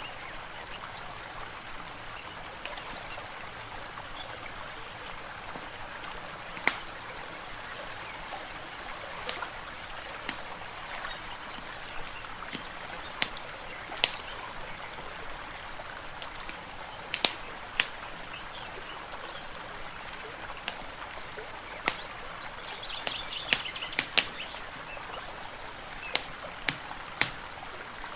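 Wood fire crackling, with sharp irregular pops, over a steady background of running water.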